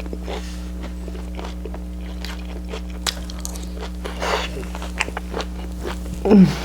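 Close-up eating sounds: crunchy bites and chewing with scattered small clicks, and a short falling "mm" near the end. A steady low electrical hum runs underneath.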